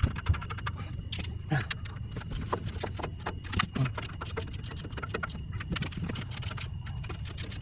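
Suzuki Scrum multicab's rear-mounted engine running steadily, with frequent sharp metallic clicks and rattles over it.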